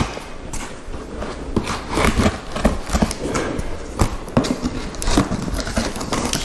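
Knife slicing through the tape and cardboard of a shipping box, with irregular scrapes and knocks of hands working the cardboard flaps.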